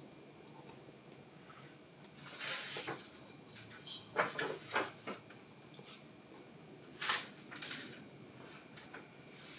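Eating pork miso soup from a wooden bowl with chopsticks: soft eating sounds and light clicks of the chopsticks against the bowl. About seven seconds in, a knock as the wooden bowl is set down on the wooden table.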